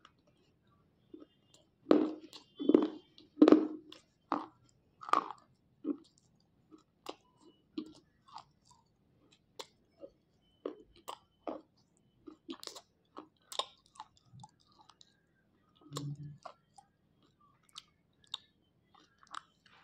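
Slate pencils being bitten and chewed. A few loud crisp crunches about two to four seconds in, then softer, scattered crackling chews.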